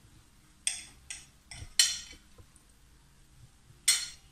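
A metal knife clinking against a ceramic plate as a slice of cake is cut: five sharp clinks, the loudest about two seconds in and near the end.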